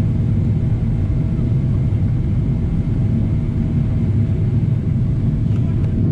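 Cabin noise inside a Boeing 777-200 climbing after takeoff: a steady low rumble of the engines and rushing air, with a faint steady hum above it.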